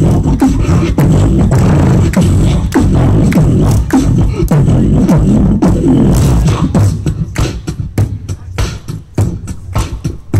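Solo human beatboxing into a hand-held microphone: a dense, continuous deep pattern for the first seven seconds or so, then sparser sharp drum-like hits with short gaps between them.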